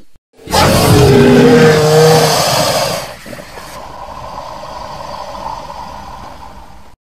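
Edited creature roar voicing a cartoon Liopleurodon. A loud, harsh roar with a wavering pitch lasts about two and a half seconds, then falls to a quieter, drawn-out tail for about four more seconds that cuts off suddenly.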